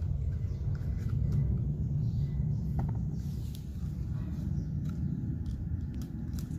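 Steady low rumble of background noise, with a few faint clicks.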